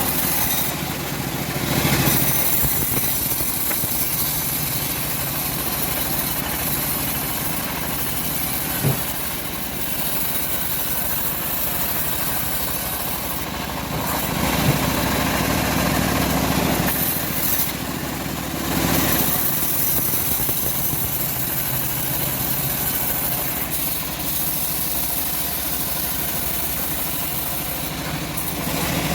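Homemade bandsaw mill running steadily while sawing teak logs: a continuous machine drone with a bright hiss over it. Two sharp clicks, about nine and fifteen seconds in, and a brief dip in level a little past halfway.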